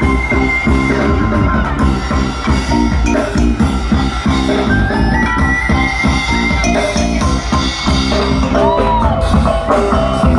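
Loud, steady music with a drum beat and a high held melody line that steps up and down between notes.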